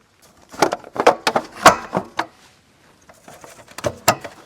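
A dust cover being worked into place over a propane connector: several sharp knocks and clicks in the first couple of seconds, then lighter scraping with two more clicks near the end.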